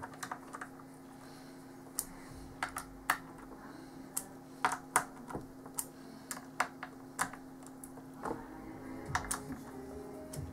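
Small screws being turned by hand into a motherboard's cooling block: scattered, irregular light clicks and taps of fingers and screws on the plate, over a faint steady hum.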